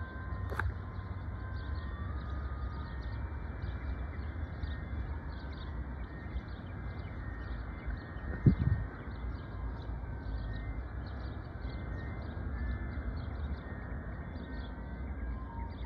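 Wind rumbling on the phone's microphone under steady bird chirping, with a few faint scattered high tones. A single low thump about eight and a half seconds in is the loudest sound.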